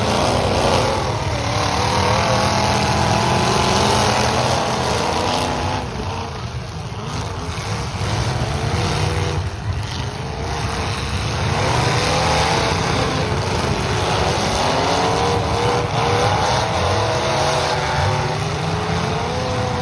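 Several demolition-derby cars' engines revving hard at once, their pitches rising and falling as they accelerate, with a brief lull about six seconds in and again around ten seconds before the revving picks up again.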